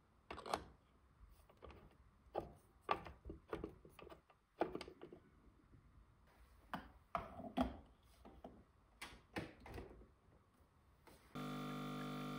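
Light clicks and knocks of a metal espresso tamper and portafilter being handled in a tamping station while ground coffee is tamped. About a second before the end, a steady hum starts suddenly.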